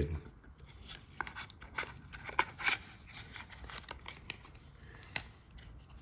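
Faint scattered clicks and small scrapes of a Swiss Army knife being handled, its metal tools clicking as they are moved and folded, with one sharper click about five seconds in.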